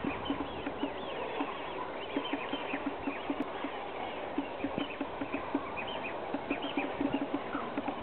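Birds calling together at a great cormorant roost: a steady run of short low notes, about four a second, with many higher chirps over them.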